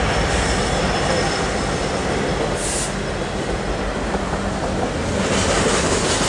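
Norfolk Southern double-stack intermodal freight train passing: the last of its diesel locomotives, then container well cars rolling by with a steady rumble of wheels on rail. A faint high wheel squeal runs through the first half.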